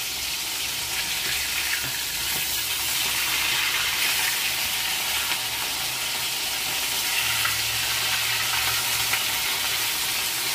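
Bata fish pieces sizzling steadily in hot oil in a steel kadhai over a medium flame. A few light clicks come from a metal spatula as the fish is turned over.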